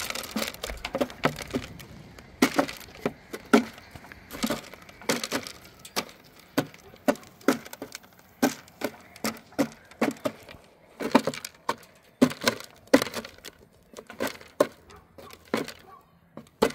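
A long series of sharp cracks and crunches, about one to two a second at uneven intervals, with quiet between them.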